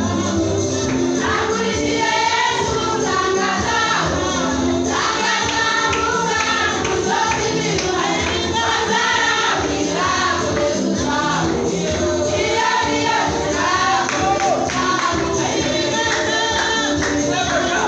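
A church choir singing a gospel song over instrumental backing with a steady percussive beat.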